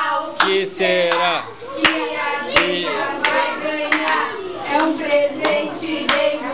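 Women and children singing together with rhythmic hand clapping, about one and a half claps a second.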